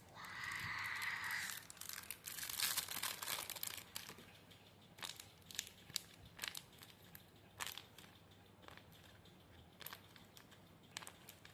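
Paper packaging being handled and unwrapped: a brief rustle, then dense crinkling about two to four seconds in, followed by scattered crackles and taps.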